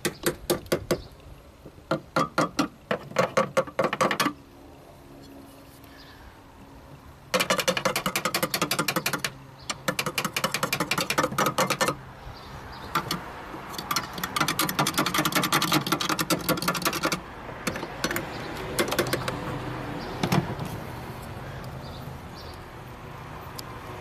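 Rapid tapping on a 2005 Chrysler PT Cruiser's engine computer (PCM), in several bursts of a few seconds each, growing sparser near the end. It is a tap test for an intermittent fault in a PCM that keeps dropping off the communication bus.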